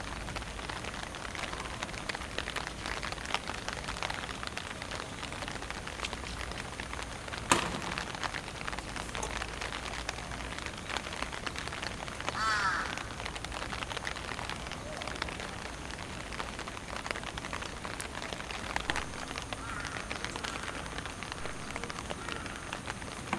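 Steady patter of rain, with one sharp knock about seven seconds in and a short harsh call around twelve seconds, a fainter call following later.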